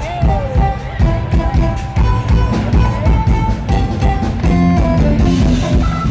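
Live jazz-fusion band playing: electric guitars, electric bass and a drum kit, with pitched guitar lines sliding over steady drum hits. Loud and rough-sounding, taken from right beside the stage.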